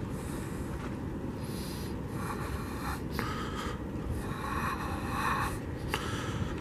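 A few slow, breathy breaths close to the microphone, over a steady low background rumble.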